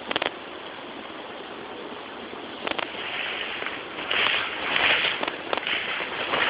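Steady hiss of brushing through tall grass and undergrowth on foot, with a few sharp clicks near the start and about a third of the way in, and louder swishing from about two thirds of the way in.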